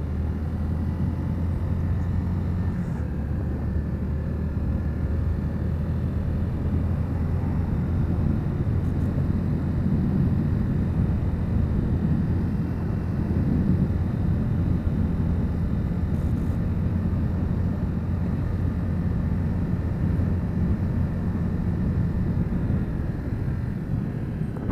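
Small motorcycle engine running steadily while riding, with a steady drone and road and wind noise.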